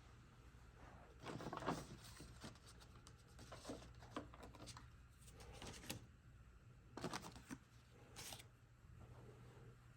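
Faint rustling and clunks of objects being picked up and moved, in irregular handling noises, over a steady low electrical hum.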